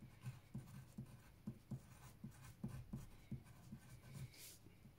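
Pencil writing on paper: a faint run of short strokes as letters are formed.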